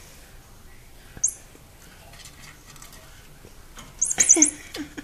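A kitten playing with a string toy on a tile floor: faint scattered taps and scuffs of paws and toy, then a quick cluster of sharp hissing sounds about four seconds in, as the kitten leaps at the toy.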